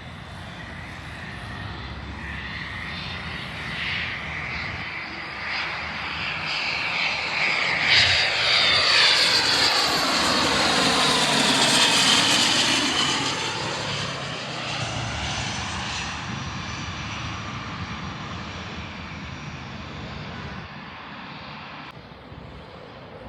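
Fixed-wing aircraft passing close by. The engine sound swells to its loudest about halfway through, with a sweeping change in pitch as it goes past, then fades away.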